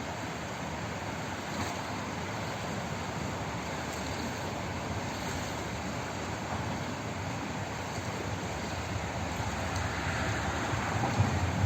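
Steady rush of flowing water, swelling louder and deeper over the last couple of seconds.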